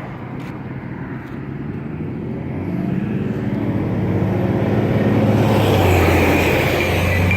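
A motor vehicle's engine hum and road noise growing steadily louder as it approaches and passes on the street. Near the end, a faint regular ticking starts up.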